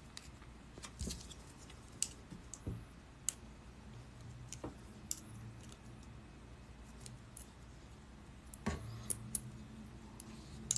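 Straightened steel paperclip wire being wound around a thin metal mandrel with pliers: faint, scattered small metallic clicks and scrapes of wire on rod and pliers.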